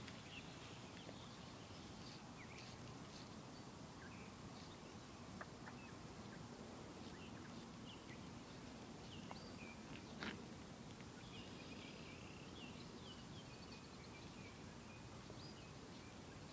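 Faint outdoor background with scattered short, high bird chirps and calls, and one brief click about ten seconds in.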